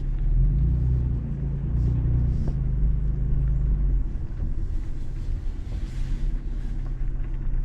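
Toyota 4Runner engine and tyres rumbling at low speed as the vehicle creeps along. The engine note is somewhat stronger for the first four seconds, then eases off.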